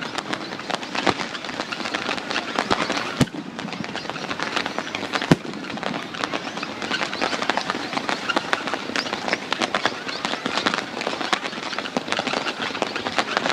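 Fireworks crackling: a dense, continuous rattle of many small pops, with two sharper, louder bangs about three and five seconds in.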